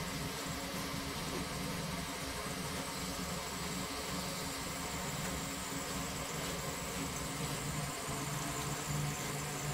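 Concrete mixer truck's diesel engine running steadily to drive the drum while wet concrete pours down its chute and is spread with a shovel.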